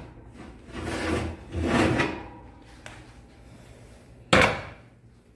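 A serving spoon scraping twice through the baked pie in a skillet, then one sharp knock about four seconds in, the loudest sound.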